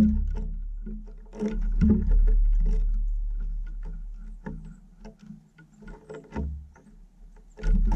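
Eurasian jay moving and pecking on a wooden bird feeder: a run of dull thumps and knocks from the wooden boards, each with a low boom, several in a row about a second or two apart.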